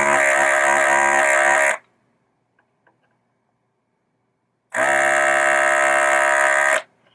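Electric desoldering tool's vacuum pump buzzing twice, about two seconds each, as it sucks solder off the header pins of a pinball power supply board.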